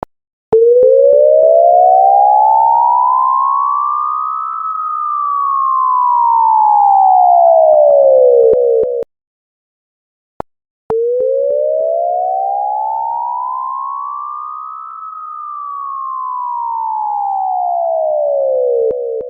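Electronic siren sound effect: a slow wail that rises for about four seconds and falls for about four, played twice with a short break between.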